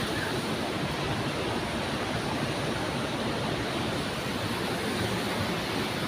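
Steady rush of flowing water, an even noise.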